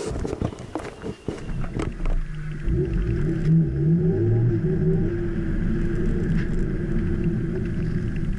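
A quick run of knocks and clicks in the first two seconds, then a car's engine and road noise heard from inside the cabin as the car drives off, the engine pitch rising briefly and then holding steady.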